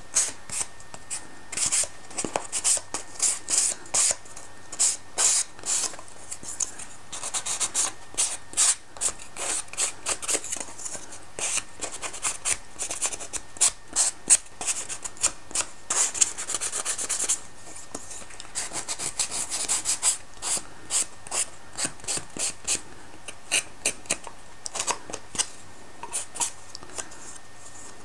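Foam sanding block rubbed back and forth by hand along the edges of a thin wooden kit part: runs of quick, short, scratchy strokes with a few brief pauses between runs. It is smoothing away the fuzzy edges left by machining.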